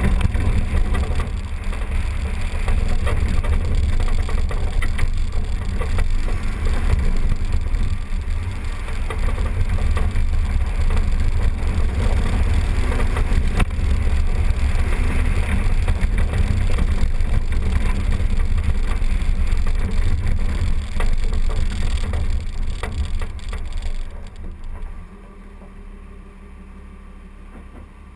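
Jeep driving along a dirt trail, heard from a camera mounted outside on the fender: a heavy low rumble of wind buffeting and tyre and engine noise with scattered crackles. About 24 seconds in it drops sharply to a much quieter low rumble.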